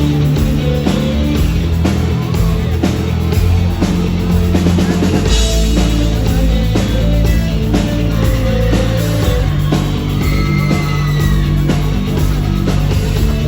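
Rock band playing, with drum kit and bass to the fore and no singing.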